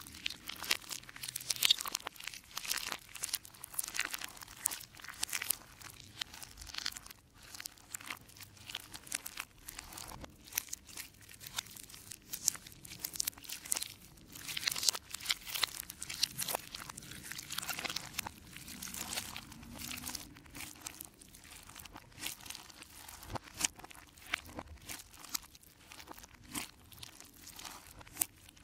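Hands squeezing, stretching and kneading clear slime packed with mixed-in chunks, giving dense, irregular wet crackling and popping.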